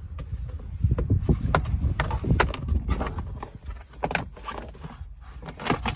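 Hard plastic pillar trim panel of a 1997 Toyota Corolla being pulled away by hand from the bottom: a run of irregular clicks and knocks as the plastic flexes, rubs and its clips let go.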